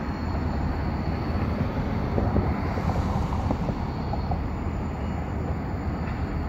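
Steady low rumble of three diesel-electric locomotives coupled together and running light, with no train behind them, as they move slowly through the yard toward the microphone.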